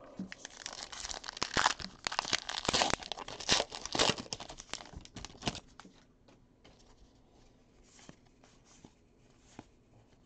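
Wrapper of a Topps Heritage baseball card pack being torn open and crinkled for about five seconds. After that come a few faint rustles and light clicks as the cards are handled.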